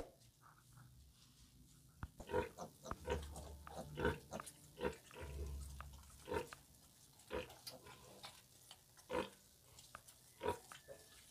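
Pigs grunting while a litter of piglets nurses at the sow: short grunts repeated about once or twice a second, starting about two seconds in, with two longer, deeper grunts among them.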